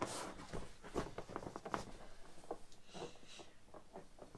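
Hands patting and pressing on the top of a freshly inflated Intex flocked-vinyl air mattress: a string of soft, irregular taps with a brief rub about three seconds in.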